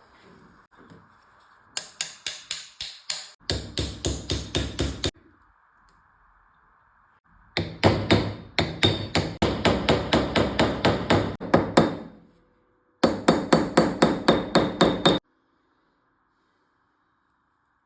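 Rapid, light hammer blows ringing on metal, about six a second, in four runs separated by short pauses.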